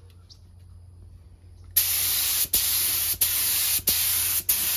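Air spray gun hissing as it sprays chartreuse paint onto a helmet, starting about two seconds in as a run of short blasts about two every second, with brief breaks where the trigger is released between passes.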